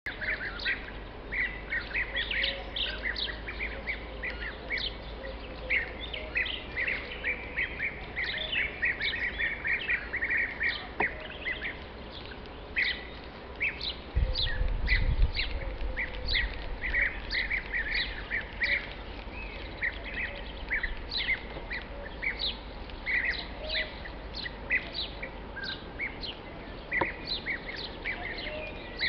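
A flock of European bee-eaters calling: many short, repeated call notes overlapping almost without pause. A brief low rumble about fourteen seconds in is the loudest sound.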